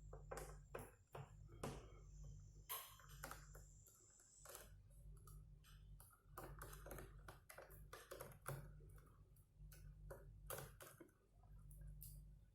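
Faint, irregular clicks and ticks of a screwdriver working the small screws out of a plastic laptop back case, over a low steady hum.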